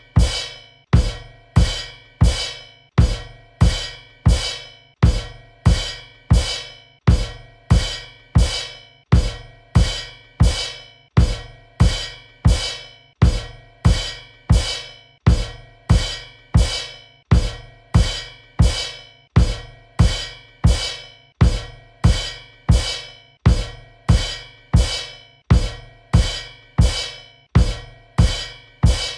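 Drum-kit cymbal kicks: a bass drum and a cymbal struck together, over and over at a steady pace of roughly three hits every two seconds. Each hit is a low thump with a bright cymbal splash that dies away quickly.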